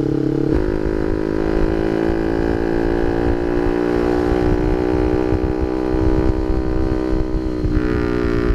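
Honda Sonic 150R's single-cylinder engine running through an aftermarket CLD Monster exhaust while the bike is ridden at a gentle pace, with wind rumble on the microphone. The engine note shifts in pitch about half a second in and again near the end, as with a gear change.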